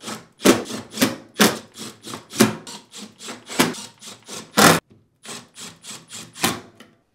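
Cordless drill/driver driving screws into a dishwasher's outer door panel: a quick run of short, sharp bursts, about two a second, that stops a little before the end.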